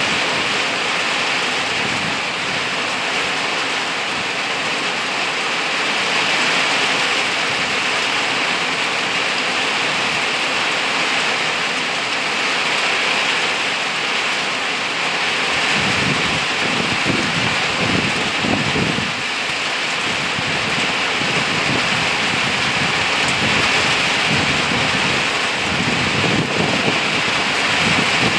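Steady rain shower falling on leaves and undergrowth: an even, unbroken hiss. A low rumble rises under it about halfway through and again near the end.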